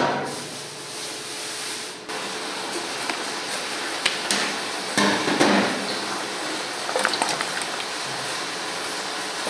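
Kitchen clatter: metal pots, pans and utensils knocking and clanking at irregular moments over a steady background noise, with a cluster of knocks about halfway through.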